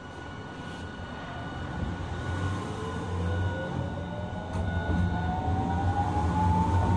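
Hiroshima Electric Railway 1000-series low-floor tram no. 1008 (Green Mover LEX) pulling away under power: its Toyo Denki IGBT VVVF inverter gives a whine that rises steadily in pitch from about two and a half seconds in, over running noise that grows louder as it gathers speed.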